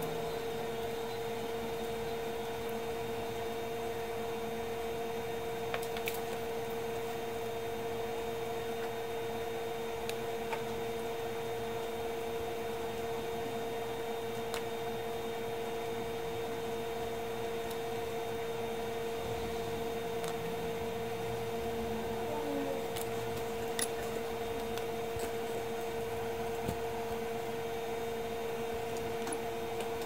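Steady mechanical hum with a strong even tone from workbench equipment running, with a few faint clicks of small tools.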